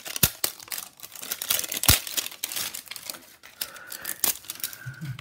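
The wrapper of an L.O.L. Surprise ball being peeled and torn away, crinkling and crackling with scattered sharp clicks.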